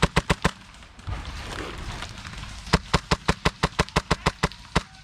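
Airsoft gun firing rapid strings of sharp shots: a short burst of about five right at the start, then about a dozen more at roughly five or six a second from around the middle.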